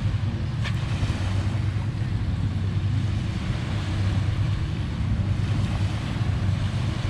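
Steady wind buffeting the microphone over waves washing on a sandy shore. There is one short, sharp sound under a second in.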